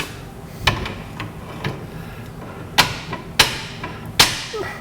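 Hammer striking the steel rear axle housing, a run of about seven irregular metallic taps with short ringing, the loudest three in the second half, to knock the housing free where it is stuck on the leaf-spring center pins.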